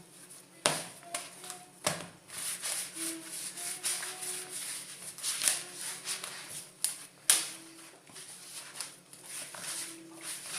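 Kitchen handling sounds of a bowl and utensils while preparing cookie dough: a few sharp knocks, about a second in, two seconds in and about seven seconds in, with scraping and rustling between.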